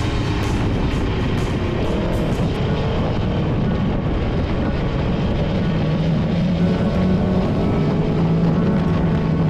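Aprilia Tuono V4 1100 motorcycle's V4 engine running at speed with wind rush, pitch shifting briefly about two seconds in and then holding steady, under background music.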